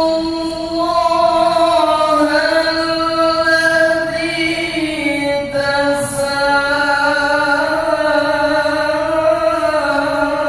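A single voice reciting the Quran in the drawn-out melodic style of tilawah, holding long notes that waver and slide in pitch, with a short breath about halfway through.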